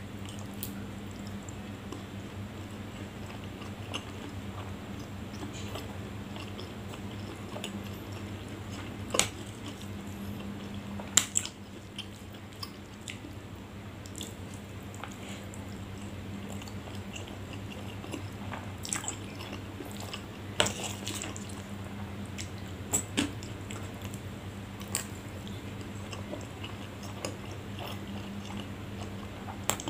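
Close-miked chewing and mouth sounds of a person eating chewy fried starch snacks (spicy cimin and cilor) from a spoon. Short sharp clinks of the metal spoon against the ceramic plate are scattered through, loudest about a third of the way in, over a steady low hum.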